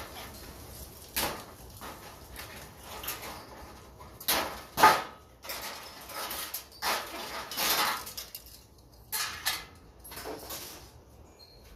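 A series of short clanks, clicks and scrapes as fluorescent light fixture parts are handled and worked apart by hand. They come irregularly, about a dozen, the loudest about five seconds in.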